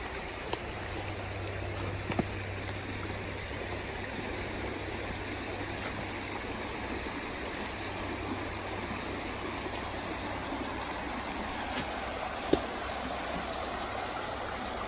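Shallow creek running steadily over rock bedrock and small riffles. A few short knocks stand out, the sharpest near the end.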